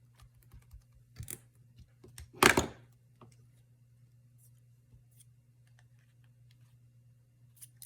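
Craft supplies being handled on a work table: scattered light clicks and taps, with a short loud rustle or knock about two and a half seconds in.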